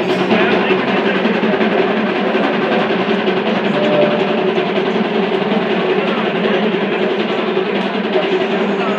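Loud, continuous drumming with music and a steady held tone underneath. It starts suddenly and keeps on without a break.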